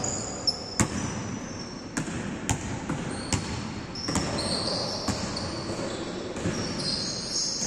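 A basketball bouncing on a hard indoor court as it is dribbled, with sharp thuds at uneven intervals, about eight in all. High squeaks of sneakers on the court come in short stretches, mostly in the second half.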